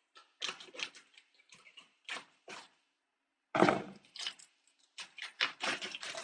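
Scattered short clicks, rustles and knocks from handling food and utensils at a kitchen counter, with a louder knock about three and a half seconds in and a quicker run of clicks near the end.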